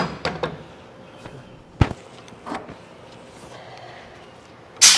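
Clamps and boards being handled: scattered sharp knocks and clanks, the loudest a clank with a short ringing tail near the end.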